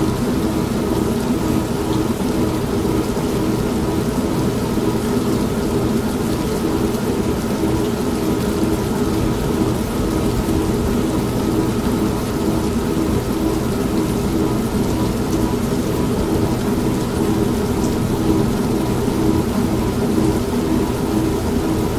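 An old washing machine running, its motor hum pulsing at an even rhythm, mixed with steady rain and thunder.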